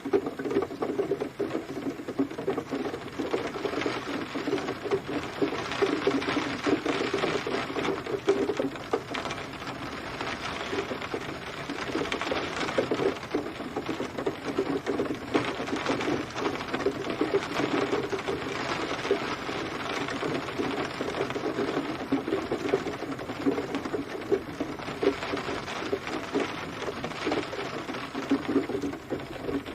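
Steady rain pattering on a surface: a dense, irregular ticking of drops without a break.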